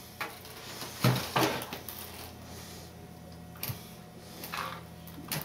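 Quiet handling noises: a few soft clicks and taps as small model parts, a carbon pushrod and a foam airframe, are handled, over a faint steady room hum.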